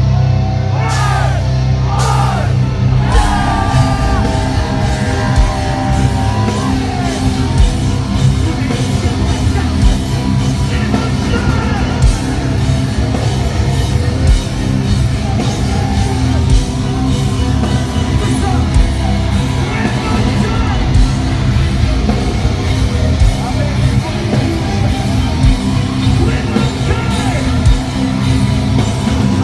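Heavy metal band playing live and loud, with electric guitars, bass and drums under sung and yelled vocals, heard from within a large hall.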